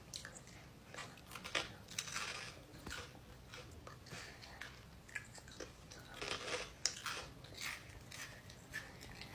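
Close-up crunching and chewing of a snack, with soft irregular crackles scattered throughout.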